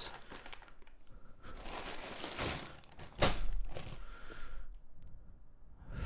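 Plastic zip-top bag crinkling as hands rummage through a bagful of loose mechanical keyboard switches, with small clicks of plastic switches knocking together and one sharper click about three seconds in. The handling quietens near the end.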